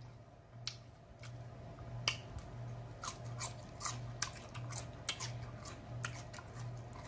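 Close-miked chewing of chicken wing meat, with wet mouth smacks and clicks scattered irregularly throughout.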